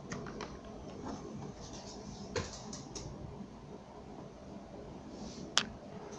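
Handling noise from a plastic air-mouse remote, with a few light clicks as it is taken off its cable and picked up. One sharp click comes near the end, over a faint steady hum.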